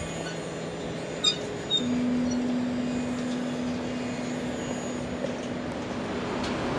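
Background music of long held drone notes that step up in pitch about two seconds in, over a steady rushing noise. Two short sharp clicks come just after a second in.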